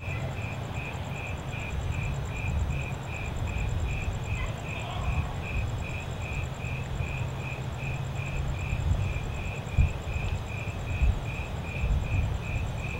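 Night ambience: a cricket chirping steadily at about two chirps a second, with a fainter, higher insect trill running underneath, over a low steady rumble.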